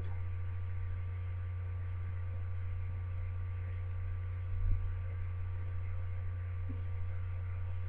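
Steady low electrical hum with faint higher steady tones, and one brief soft low bump a little past halfway.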